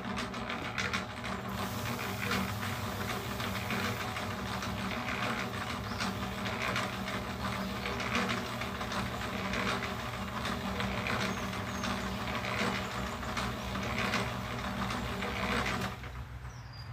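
Small electric cement mixer running: a steady motor hum with the drum's gears, while concrete mix tumbles and rattles inside the drum. The motor stops about sixteen seconds in.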